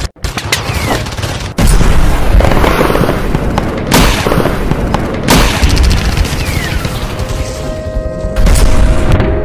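Cinematic sound-effect soundtrack of a logo animation: several heavy booms and bursts of gunfire over music.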